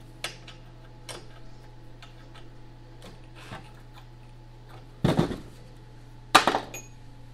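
Metal tools and parts handled at a chipper shredder's blade housing: a few light clicks, then two louder metallic clatters about five and six and a half seconds in, the second ringing briefly.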